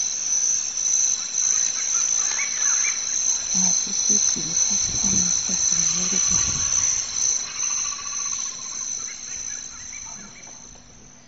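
Steady, high-pitched drone of a chorus of insects, with a few low rumbling sounds in the middle, fading out near the end.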